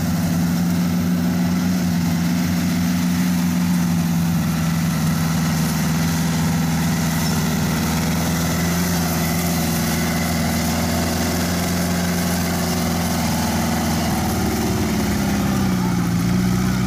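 The Mitsubishi engine of a tracked rice-hauling tractor runs steadily under way. Its pitch wavers and dips slightly near the end.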